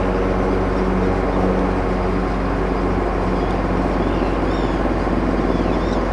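A steady engine drone that holds one even pitch. From about halfway in, birds call over it with short high cries that come more often near the end.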